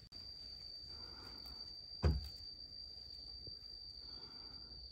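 Insects trilling steadily at one high pitch, with a single dull thump about two seconds in.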